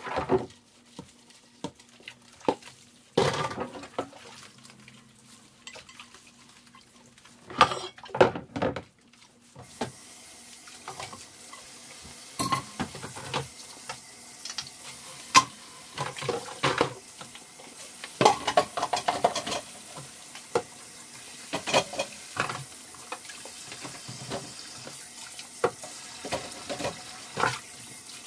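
Dishes and cutlery clattering and knocking in a kitchen sink. About ten seconds in, the tap starts running, and the clatter goes on over the sound of the water.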